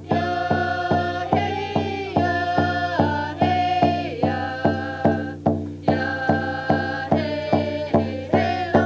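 Group of singers performing a First Nations song to a steady beat of hand drums, about two and a half strikes a second.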